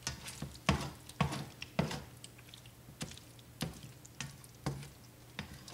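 Thick alfredo sauce in a pan plopping and popping with bubbles as it comes off the boil, a soft pop about every half second with a short pause in the middle.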